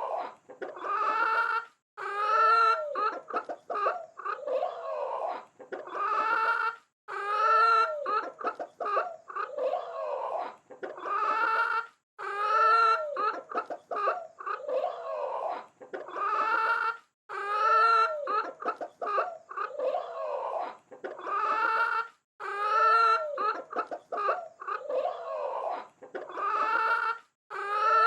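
Chickens clucking, in one short passage of calls that repeats identically about every five seconds.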